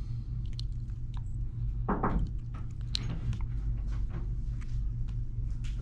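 Small clicks and taps from handling the watch and repair tools on the bench, with a short louder rustle about two seconds in, over a steady low electrical hum.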